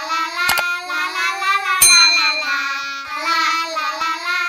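Intro jingle sung by a child-like voice holding a wavering tune, with a mouse-click sound effect about half a second in and a bright bell ding just under two seconds in, the usual subscribe-button animation sounds.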